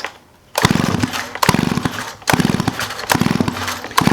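Stihl 028 AV Super chainsaw being cranked by its recoil starter rope four times, about a second a pull, the engine spinning over with rapid ticking but not running. The spark plug is out and grounded to the cylinder head for a spark test, and the ignition is now sparking after the on/off switch was cleaned.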